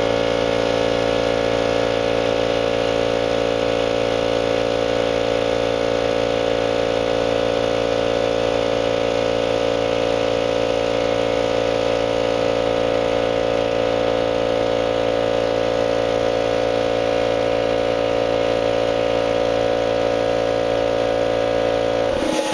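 Central Pneumatic 2.5 hp, 10-gallon direct-drive air compressor running steadily as it pumps up its tank: an even motor-and-pump hum at one pitch that stops suddenly near the end.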